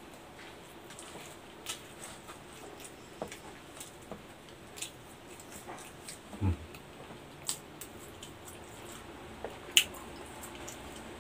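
Close-up mouth sounds of eating a burger and an ice-cream sundae: scattered wet lip smacks and chewing clicks. A short, low throaty sound about six and a half seconds in falls in pitch.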